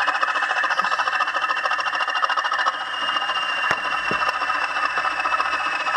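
Class 20 diesel engine sound (English Electric 8SVT) played by a Bachmann model locomotive's sound decoder through its small twin speaker: a steady, rapid engine throb with a rattle, with almost no bass. A high whine drifts slightly lower in pitch midway.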